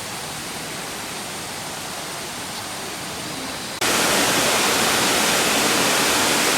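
Steady rush of flowing water from a jungle stream or cascade, an even hiss that jumps suddenly louder about four seconds in.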